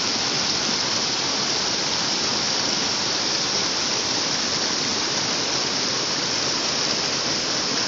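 Inflowing water rushing steadily over rock ledges into a reservoir, churning into white water.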